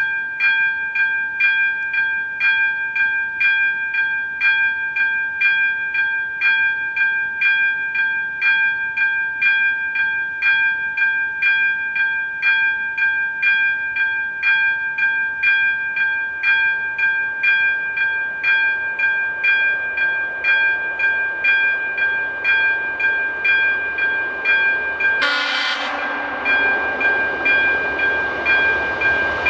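AŽD ZV-02 electric level-crossing bell ringing steadily, about two strokes a second over a ringing tone, warning that a train is coming. From about two-thirds of the way through, the rising rush of the approaching diesel railcar builds under it, and a brief loud burst comes about 25 seconds in.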